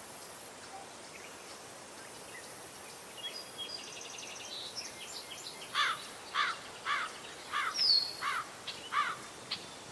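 Outdoor nature ambience: a high insect drone that comes and goes, with birds calling over it. Midway there is a fast bird trill, then a run of about six sharp, downward-sweeping chirps, roughly two a second.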